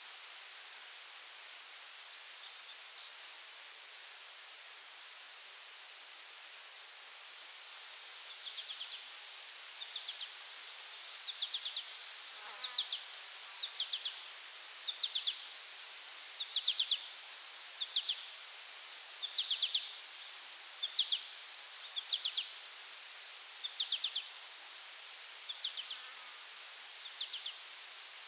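Insects chirping in a forest ambience: a steady high-pitched drone, a faint fast regular chirp, and from about eight seconds in a louder trilled chirp repeating about once a second.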